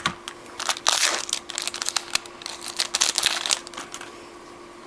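Plastic wrapper of a trading-card pack crinkling and tearing as it is cut open, in two main bursts with scattered crisp clicks between them.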